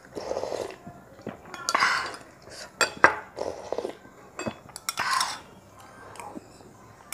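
Metal spoon clinking and scraping against a small glass bowl as the last spoonfuls are scooped up. Short sips and slurps come off the spoon between the clinks.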